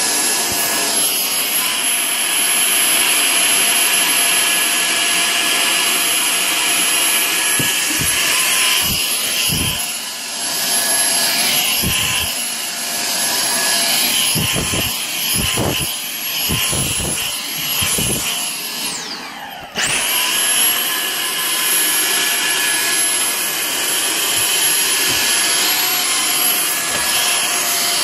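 Dyson cordless stick vacuum running with its crevice nozzle along skirting boards and carpet edges: a steady high whine and rush of suction, with a run of low knocks in the middle. About two-thirds through, the motor winds down briefly and then cuts straight back in.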